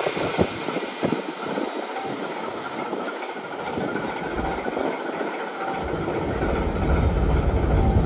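TEM18DM diesel shunting locomotive rolling slowly past, its wheels clicking over the track. The low rumble of its diesel engine builds from about six seconds in as it draws closer.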